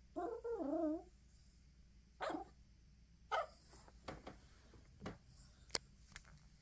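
Yorkshire terrier whining and crying, wanting a box of tissues she can't reach. A wavering cry of about a second comes first, then two shorter cries, followed by a few short, sharp clicks.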